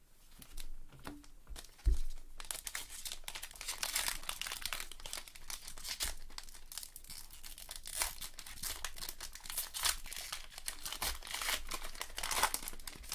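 A Topps Gypsy Queen trading-card pack's wrapper being torn open and crinkled by hand: a single thump about two seconds in, then a dense, continuous crackle of wrapper being pulled apart.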